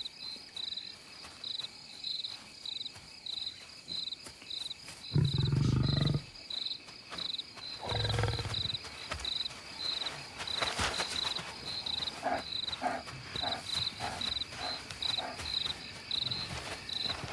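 Crickets chirp steadily in quick pulses throughout, while a courting lion pair growls: two loud low growls about five and eight seconds in, then a run of shorter grunts near the end.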